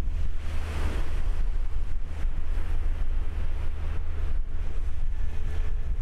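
Wind buffeting the microphone as a steady low rumble, over the wash of choppy water against a ship's hull.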